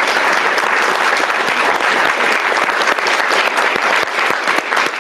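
An audience applauding: many people clapping together in a dense, steady patter.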